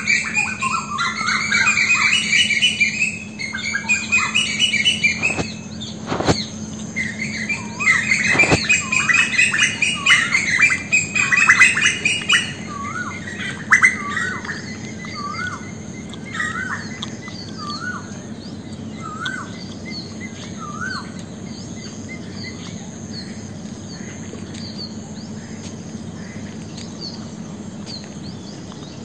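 Birds chirping in garden trees: loud, dense chattering calls for about the first twelve seconds, thinning to single short rising notes about one a second, with fainter high calls going on. A steady low hum lies beneath, and two sharp clicks come a few seconds in.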